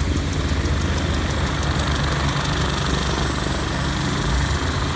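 Medical helicopter running on its engines with the rotor turning: a steady low rotor rumble under a thin, high, steady whine.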